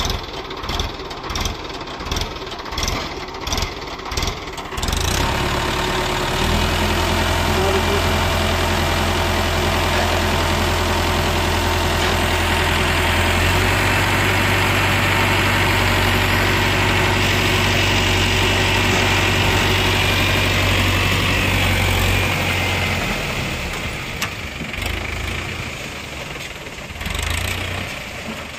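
Tractor's diesel engine idling with a slow, regular thump, then revved to a steady high speed about five seconds in to drive the hydraulic tipper lifting a loaded trailer bed. The revs rise a step twice and drop back to an uneven idle some seven seconds before the end as the bed reaches full tip.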